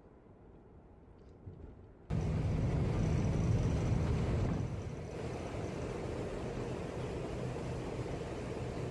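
Quiet at first, then from about two seconds in a loud, steady low rumble of a ferry's engines under the rushing of its churned wake water. It eases slightly a few seconds later.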